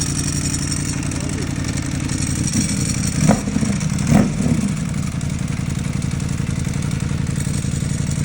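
Ducati Panigale V4 engine idling through an Akrapovič titanium exhaust, with two short throttle blips about three and four seconds in.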